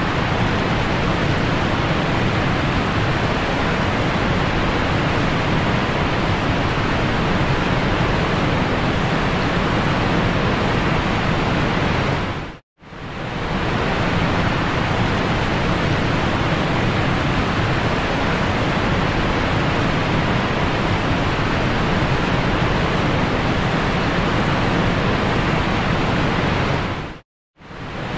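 Steady loud rush of a boat running at speed: wind over the microphone and churning wake water blended into one even noise with a low rumble beneath. It cuts out briefly twice, about halfway through and near the end.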